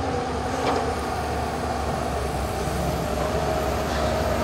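Steady running noise of a moving LHB passenger coach on the rails, with a faint single click a little under a second in.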